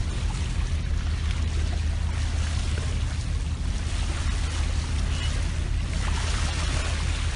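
Water rushing and splashing along a moving sailing yacht's hull at the bow, over a steady low drone.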